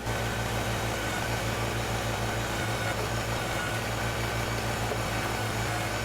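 Kubota BX compact tractor's three-cylinder diesel engine running steadily.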